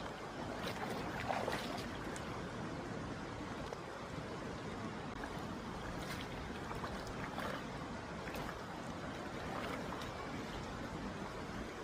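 Valley stream water running steadily, with a few short splashes scattered through it.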